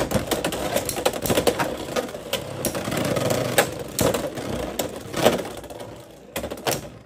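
Two Beyblade X spinning tops, Sphinx Cowl 560 Orb and Phoenix Wing, battling in a plastic stadium: a steady whirring with many sharp clicks as they collide, dying down near the end.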